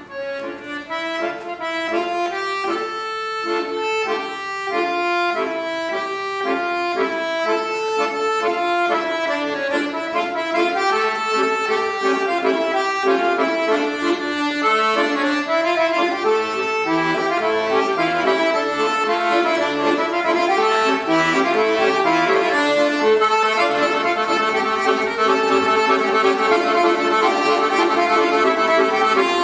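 Solo accordion playing a forró-style tune written to imitate a train. It starts slowly with widely spaced notes and grows faster and louder as it goes.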